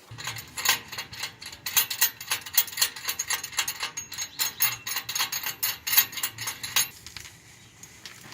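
Rapid metallic clicking, about four clicks a second, stopping suddenly about seven seconds in: a ratchet wrench working the bolt of an exhaust downpipe clamp.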